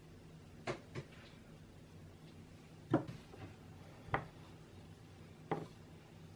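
Two light taps of a small mesh sieve dusting cocoa powder, about a second in, then three separate knocks as a stainless steel tray is shaken to roll cocoa-dusted truffles around in it.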